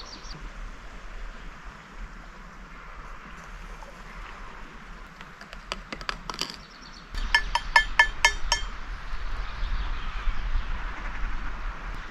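A metal spoon clinking against a cup while coffee is made: a few light taps, then about seven quick ringing clinks in a row just past halfway, over a faint steady outdoor hiss.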